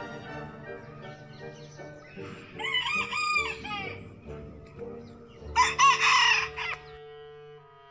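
A rooster crowing twice: once about two and a half seconds in, and again, louder, near six seconds. Background music with long held notes plays underneath.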